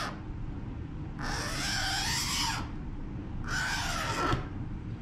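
A scoring knife drawn along a metal straight edge across a clear acrylic sheet: two scraping strokes with a squeaky edge, the first about a second in and longer, the second shorter near the end. This is the back-side score, which lets the sheet snap cleanly along the line.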